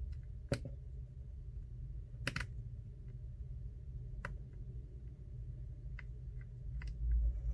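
Scattered light clicks and taps of a precision screwdriver working the two bottom pentalobe screws out of an iPhone XR and the tiny screws being handled, over a steady low hum.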